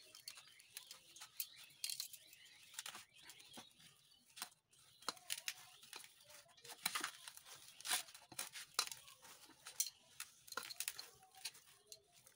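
Hands kneading crumbly cooked semolina dough for gulab jamun on a steel plate: faint, irregular squishing and scraping with scattered light clicks.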